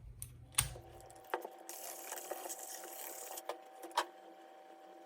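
Sharp clicks and small handling noises as a DDR3 laptop RAM stick is fitted into the memory slot, a loud click about half a second in and another about four seconds in, over a steady hum of a few held tones.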